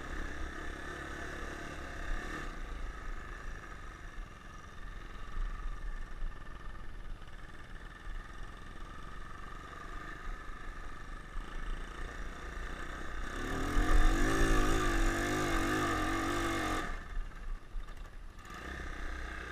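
Single-cylinder engine of a 200 cc ATV running at low revs under light throttle. About two-thirds of the way through it is revved harder for a few seconds, louder and with a wavering pitch, then drops back to a lower note.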